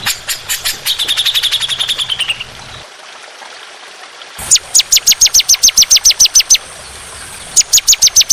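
Songbird singing rapid-fire 'tembakan' phrases: sharp repeated notes at about eight a second, with a brief trill in the first two seconds. After a short pause come two loud runs of quick, steeply falling notes, the second starting near the end.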